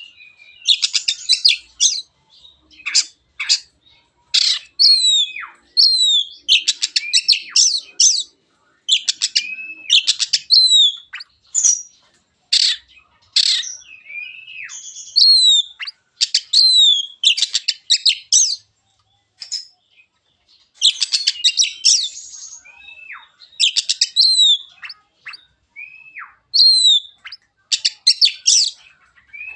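Oriental magpie-robin (kacer, black-and-white form) singing loudly and continuously. Phrases of rapid, harsh chattering alternate with clear falling whistles and short arched whistles, with brief pauses between phrases.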